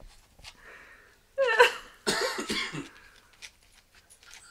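A cough: two short, harsh bursts about half a second apart, a little over a second in.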